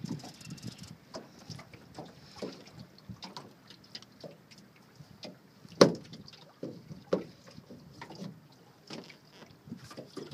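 Scattered knocks and clunks on a small aluminum fishing boat. The loudest knock comes about six seconds in, with another a little after seven.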